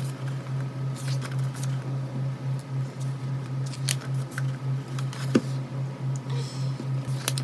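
Pages of a photo book being turned and handled: a few short clicks and soft rustles over a steady low hum that pulses about four times a second.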